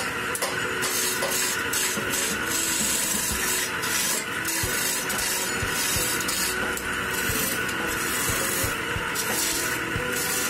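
Wood lathe running while a hand-held chisel cuts into a spinning wooden spindle: a scraping hiss that comes and goes with each pass of the tool, over the machine's steady hum.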